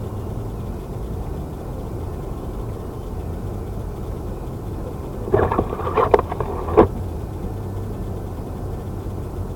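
Blizzard wind blowing steadily against the microphone, with a brief cluster of three or four clattering knocks about five to seven seconds in.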